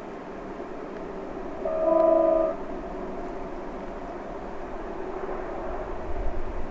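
LKAB IORE (Bombardier TRAXX) electric locomotives hauling an iron-ore train, a steady rumble, with one short horn blast of several notes together about two seconds in, lasting just under a second.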